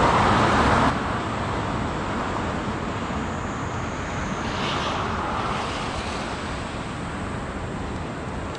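Steady outdoor rushing noise of road traffic. A louder swell at the start cuts off abruptly about a second in, and the noise then runs evenly.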